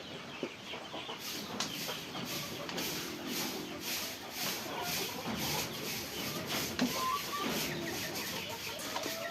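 Chickens clucking in a henhouse, with a steady series of scratchy strokes from cleaning the floor that starts about a second in.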